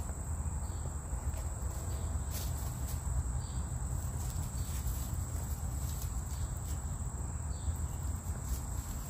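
Insects trilling steadily at a high pitch over a low rumble, with a few faint rustles as chickens scratch in dry leaf litter.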